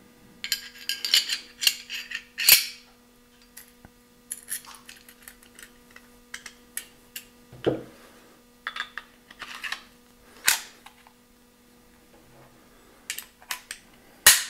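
Steel parts of a stainless CZ 75 B pistol clicking and clinking as the stripped slide, barrel and recoil spring are handled and the pistol is put back together, with a dull knock about halfway and a sharp metallic click near the end as the slide goes onto the frame.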